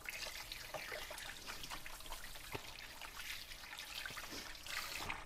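Kitchen tap running with water splashing over hands as they are washed under it; the water stops near the end.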